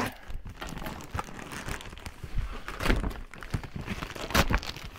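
Shoe box packaging being opened by hand: irregular crinkling, rustling and tearing of wrapping, with two louder sharp sounds about three seconds in and near the end.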